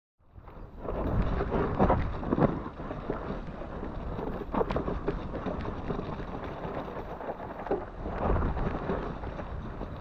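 Wind buffeting the microphone of a camera on a mountain bike riding down a rough, muddy trail, a dense rumble with scattered knocks and rattles from the bike hitting bumps. It starts suddenly just after a moment of silence.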